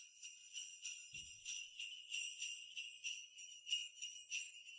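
Sleigh bells jingling, shaken in a steady rhythm of a few shakes a second.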